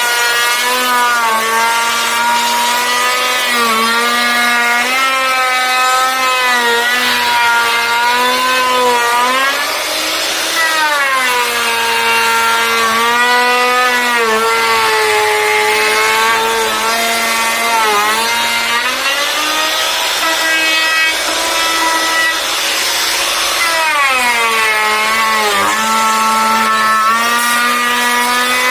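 Electric woodworking power tool running continuously while cutting wood, its motor whine sagging in pitch and recovering several times as it takes up and sheds the load.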